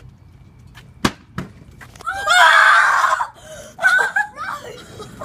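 Plastic water bottle hitting concrete: two sharp knocks about a second in, a flip landing. Then a long loud yell, followed by more short vocal sounds.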